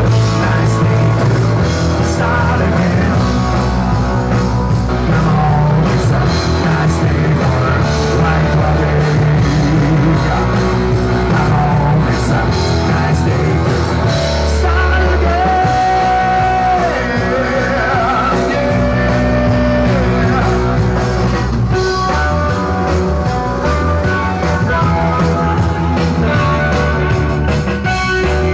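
Live rock band playing loudly with electric guitar and drums, with a few bent guitar notes about halfway through.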